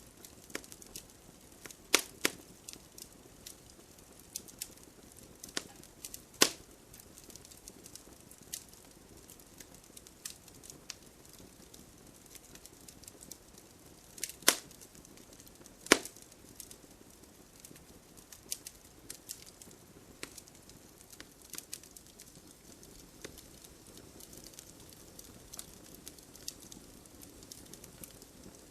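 Wood fire burning in a fireplace: scattered crackles over a soft hiss, with four loud pops, two of them close together just past the middle.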